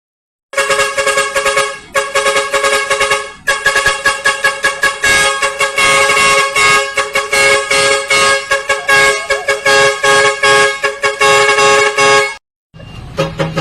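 Truck air horns honking in quick rhythmic blasts, several tones sounding together, loud. The horns cut off about twelve seconds in, and music starts near the end.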